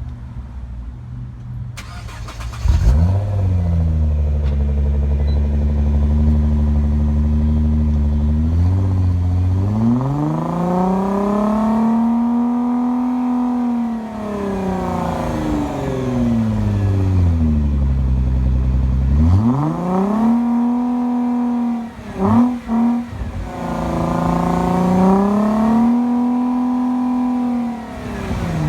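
2009 Nissan GT-R's twin-turbo 3.8-litre V6 breathing through a Switzer aftermarket exhaust: the starter cranks about two seconds in and the engine catches into a fast idle, then it is revved up, held and let fall back. It is blipped a few times quickly, then revved once more near the end.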